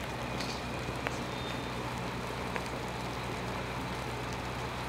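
Steady low hum of an idling engine, even in pitch and level, with a few faint clicks.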